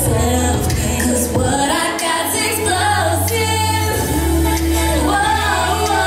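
Music: a singing voice over a deep bass line, the bass holding each note for a second or two.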